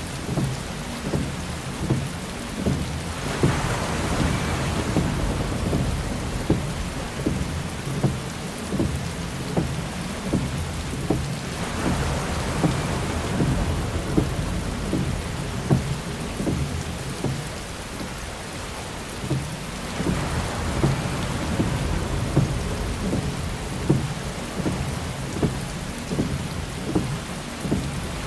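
Heavy rain falling on a car, dense with individual drop hits, with a windshield wiper swish swelling up about every eight seconds.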